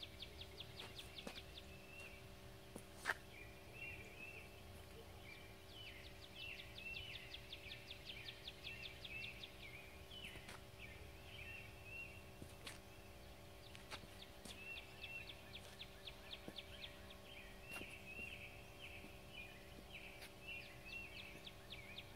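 Wild birds singing, with rapid repeated trills and short chirping phrases coming and going, over a faint steady hum. A single sharp click about three seconds in.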